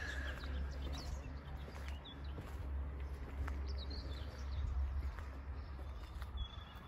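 Outdoor background noise: a steady low rumble, a few short bird chirps, and the odd faint footstep.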